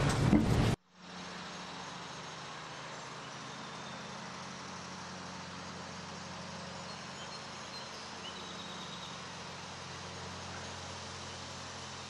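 Children's voices cut off abruptly about a second in, leaving a steady low mechanical hum with a faint hiss, like street background.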